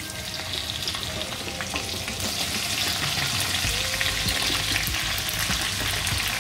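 Cut okra hitting hot oil and cumin seeds in a wok, sizzling and crackling. The sizzle builds up over the first two seconds as more okra goes in, then holds steady.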